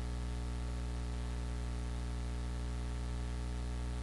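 Steady electrical hum with many evenly spaced tones under a constant hiss: background noise of the lecture recording, with no other sound.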